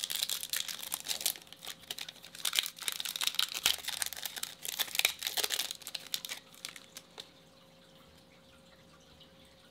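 Foil trading-card pack wrapper crinkling and tearing as it is ripped open by hand; the crackling stops about seven seconds in.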